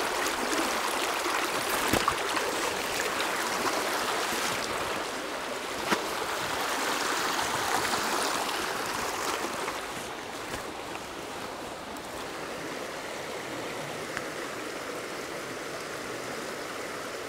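Fast, shallow stream rushing over rocks, with a couple of sharp knocks from wading steps about two and six seconds in. The rushing grows a little quieter about ten seconds in.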